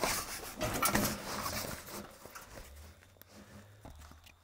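New pop-up camper canvas rustling and crinkling as it is handled and pushed into place along the roof edge, loudest in the first two seconds, then fading to a few faint taps and rustles.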